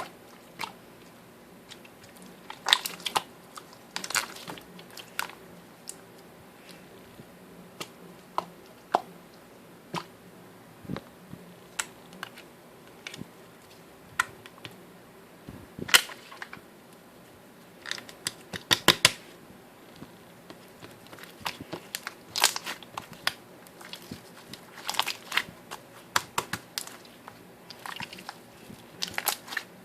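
Slime being played with by hand: irregular sharp pops and clicks, sometimes in quick clusters.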